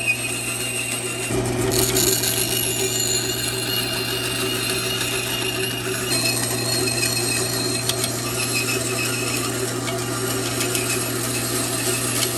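1950s electric woodworking saw running steadily while cutting wood, its pitch dropping about a second in as the blade takes the cut and lightening near the middle.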